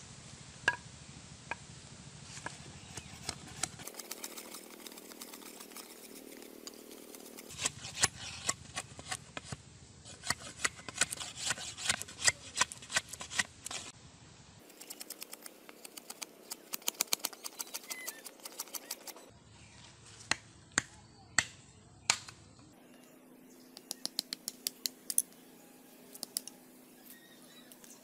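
Curved sickle blade chopping and shaving bamboo: sharp knocks, some in quick runs of several strikes a second and some as single hard blows. The background changes abruptly a few times between takes.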